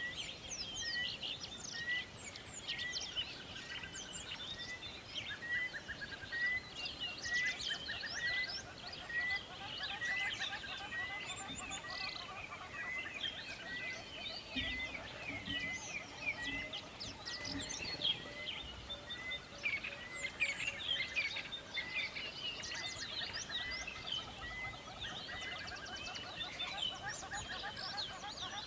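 A chorus of several birds singing and chirping at once, with one bird repeating a short note over and over at a steady pace until near the end.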